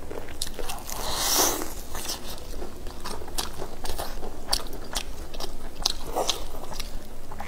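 Close-up biting and chewing of deep-fried chicken drumsticks, the crispy coating giving many sharp crunches. A longer crackling crunch comes about a second in and again about six seconds in.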